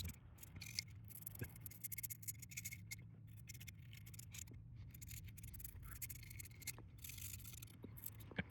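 Faint, scattered light clicks and scratches, as of small parts or a circuit board being handled, over a steady low hum.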